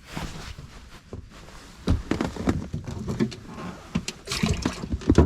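Water splashing and sloshing, then a series of irregular knocks and bumps from handling.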